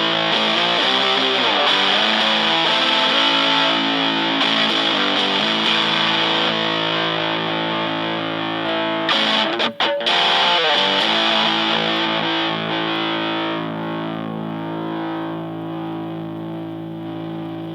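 Fender Stratocaster played through a PineTop Distortion pedal set to its modern mode, into a Fender Blues Junior amp: distorted chords with some slides, a brief break about ten seconds in, then a last chord left ringing and slowly fading.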